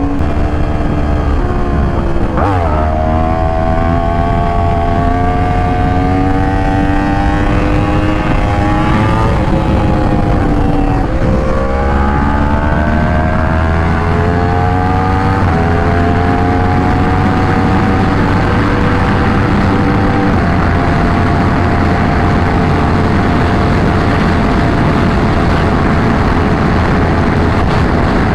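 Yamaha R1 inline-four with a titanium Racefit half-system exhaust, ridden hard through the gears. The engine note climbs and drops at each upshift several times in the first fifteen seconds or so, then settles into a steady cruise. Wind rumble on the microphone runs underneath.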